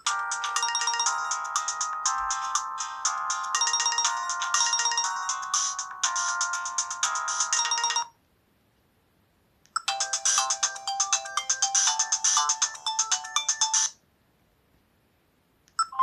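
Newgen C800 mobile phone playing ringtone previews through its loudspeaker: one melody runs for about eight seconds and cuts off, then after a short pause a second, different melody plays for about four seconds and stops, and a third begins right at the end.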